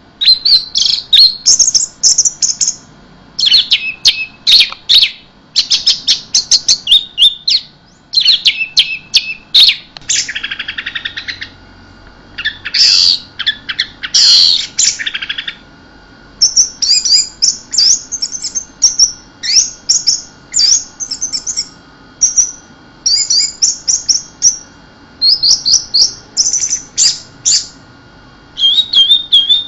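Orange-headed thrush singing: loud bursts of rapid, varied high notes, one to two seconds each, separated by short pauses, with a couple of harsher hissing stretches in the middle.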